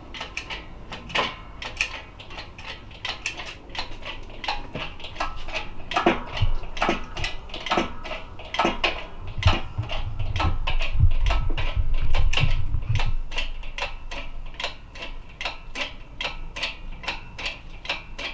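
Metal parts of a K-series RSX-S manual transmission clinking and knocking as the gearbox is taken apart, with irregular sharp taps throughout. Heavier low thumps and rumbling come between about ten and thirteen seconds in.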